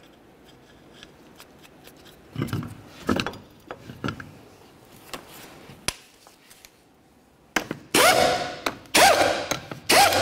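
1/2-inch impact gun running lug nuts down onto a steel wheel in three short bursts near the end. Before that, a few light knocks from the lug nuts being started on the studs by hand.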